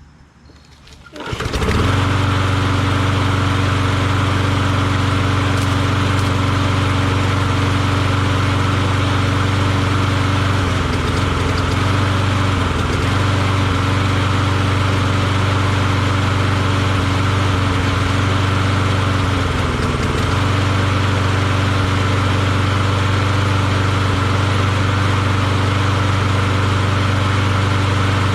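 Briggs & Stratton Quantum small engine on a Craftsman walk-behind mower, pull-started and catching about a second in, then running steadily at full speed. It stumbles around ten to thirteen seconds in and again near twenty seconds, a sputter the owner puts down to water drips being sucked into the carburetor after hosing the mower down.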